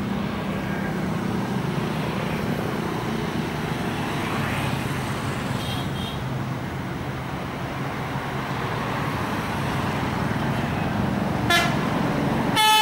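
Steady roadside traffic noise with a heavy vehicle's engine running. Near the end a short horn blast, then a tour bus's telolet horn starts loud, its several tones stepping up and down in a melody.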